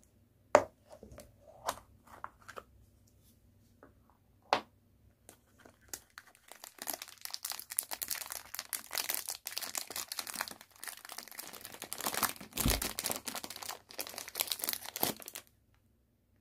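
Hard plastic gashapon capsule clicking and snapping as it is opened, a few sharp clicks in the first seconds. Then thin plastic packaging crinkles and rustles for several seconds as a small toy is unwrapped from its clear bag, stopping shortly before the end.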